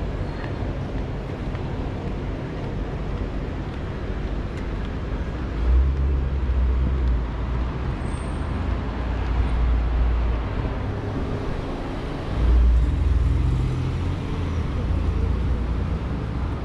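City street ambience with car traffic passing. A low rumble swells twice, about six seconds in and again about twelve seconds in.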